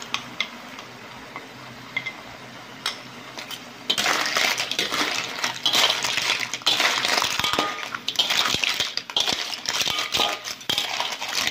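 Lala clams in their shells clattering and scraping against a metal wok as they are stir-fried with a metal spatula, starting about four seconds in. Before that come a few light clicks of a spoon scraping sauce out of a bowl.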